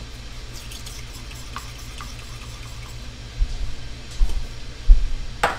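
Steady low electrical hum with a few faint ticks, then three dull thumps and a sharp click near the end: objects being handled and set down on the counter.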